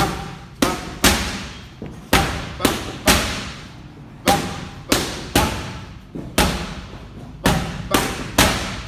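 Boxing gloves smacking focus mitts during pad work: a run of sharp, loud smacks about every half second, each with a short echo.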